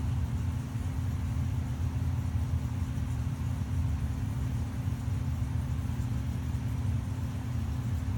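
A 1980s Windsor & Browne ceiling fan running on its low speed: a steady low motor hum.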